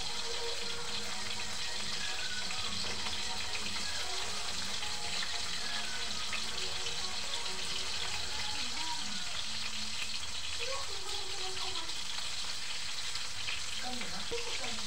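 Food frying in hot oil in a steel wok over a wood fire: a steady sizzle.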